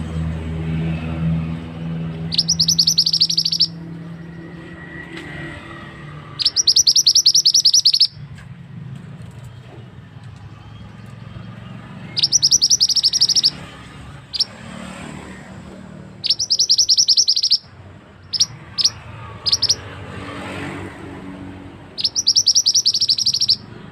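Call of a male mandi darah (mantenan) bird: five bursts of rapid, high-pitched chattering notes, each lasting about a second, a few seconds apart, with a few single sharp chips between the fourth and fifth bursts.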